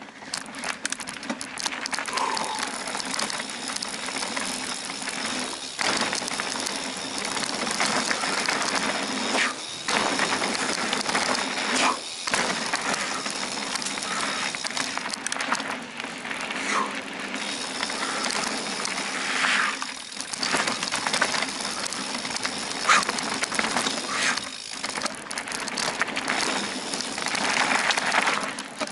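Mountain bike ridden fast along a dirt forest trail: continuous tyre-rolling and rattling noise over the bumps, with a few brief lulls.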